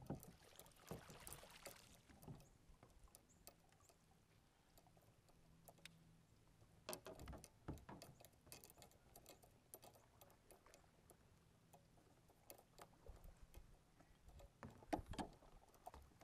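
Mostly quiet, with scattered faint knocks and a brief splash-like hiss near the start from a fishing kayak and its gear while a bass is reeled in; two louder knocks come about seven seconds in and near the end.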